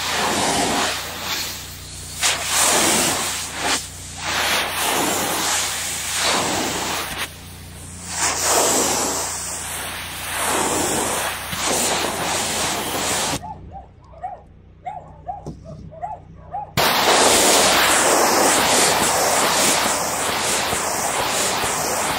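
Water jetting from a hand-held spray wand onto glass solar panels: a hiss that rises and falls as the spray sweeps across the panels, stops for about three seconds a little past halfway, then runs steadily again.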